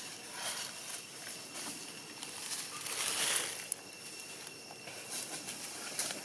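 Dry leaf litter rustling and crackling as macaques shift about and handle a jackfruit, with a louder rustle about three seconds in.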